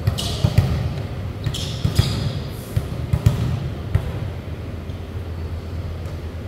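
Volleyball being struck and bouncing on the court floor: a string of sharp smacks through the first four seconds, fewer after, over a steady low hum.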